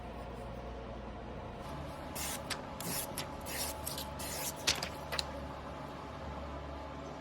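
Sashimi knife blade stroked on a wet whetstone: a run of about eight short hissing strokes lasting a few seconds, the loudest one past the middle, over a steady low hum.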